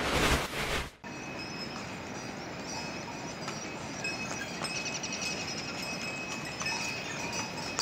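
A swishing transition effect lasting about a second and cutting off sharply. Then outdoor mountain ambience: a steady hiss with small birds chirping and trilling high above it.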